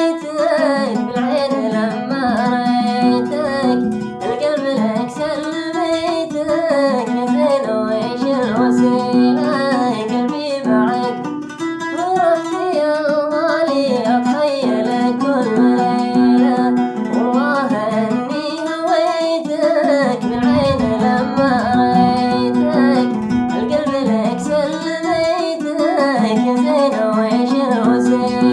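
A man singing a mashqasi sawt, a Hadrami song, in long wavering melismatic lines over a plucked string instrument accompaniment.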